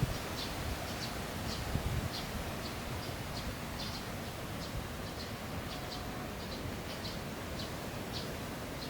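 Small bird chirping over and over, short high chirps about two or three a second, over a steady low outdoor rumble.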